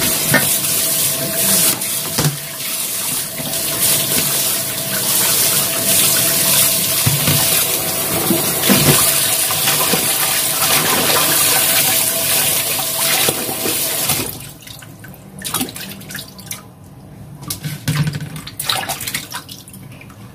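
Kitchen tap running into a steel bowl of raw chicken pieces in the sink while hands rub the meat under the stream. About two-thirds of the way through the tap stops, leaving quieter splashing and sloshing as the pieces are washed in the standing water.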